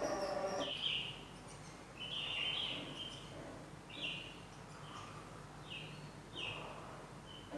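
Small wild birds chirping: a scattered series of short, high chirps, one every half second to second. A lower humming sound, louder than the chirps, cuts off abruptly less than a second in.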